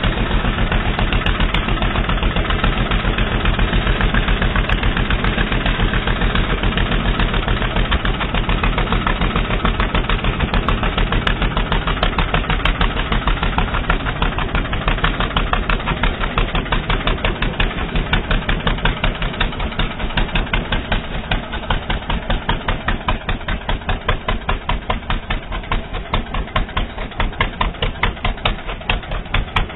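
ATV (quad bike) engine running, with a rapid, even pulsing beat that grows more distinct and a little quieter in the second half.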